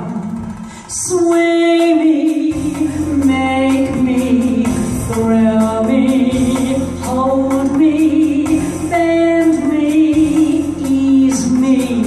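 A woman singing live into a handheld microphone over a backing track, amplified through a PA. After a short dip in the first second she carries on with sustained, wavering sung notes.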